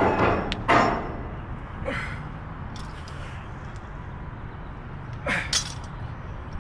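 Hard, forceful breaths from a man doing loaded barbell back squats: two sharp exhales in quick succession at the start, another about two seconds in, and more past the five-second mark. A steady low background noise sits under them.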